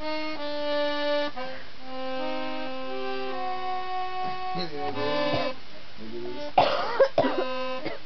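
Instrumental music with held notes that move from pitch to pitch. About two-thirds of the way through, a few sudden, sharp, loud sounds cut in over it.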